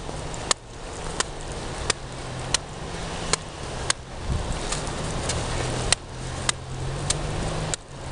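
Footbag being kicked repeatedly: a run of sharp taps, roughly one every half second to second. Behind them runs a steady rushing noise with a low engine-like hum.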